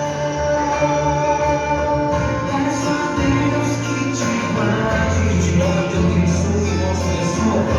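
Music: a sung romantic ballad in Portuguese, here in a passage without clear words, with held chords, a bass line and a light beat.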